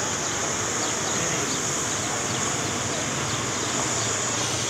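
Steady distant din of motorcycles and crowd voices, with a steady high hiss over it.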